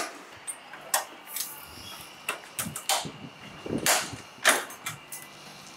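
Sharp metal clicks and knocks from a kitchen truck's body and latches being handled as it is opened up, about seven in a loose series, loudest about four seconds in.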